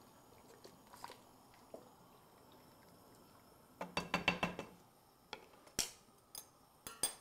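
A spoon stirring soup in a stainless steel stockpot, with a short run of scraping and clinks against the pot about four seconds in. A few separate light clicks follow near the end.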